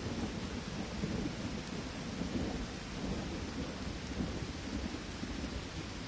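Steady rain with a low rolling rumble of thunder that slowly dies away.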